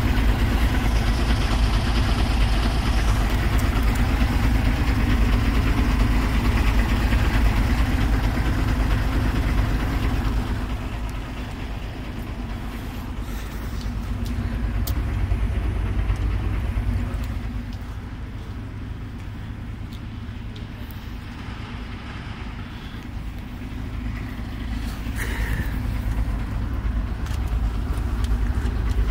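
Mercedes-Benz 1524 truck's diesel engine idling steadily with a low, even hum. It is loudest for the first ten seconds, drops away in the middle and comes back up near the end.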